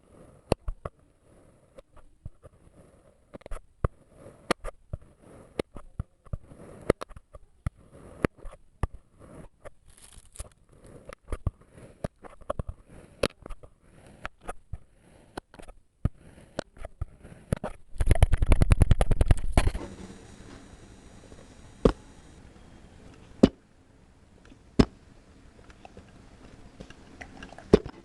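Kinetic sand being cut and crushed: a run of crisp crackles and clicks, with one dense, loud crunching burst lasting under two seconds about two-thirds of the way through, followed by a few separate sharp taps.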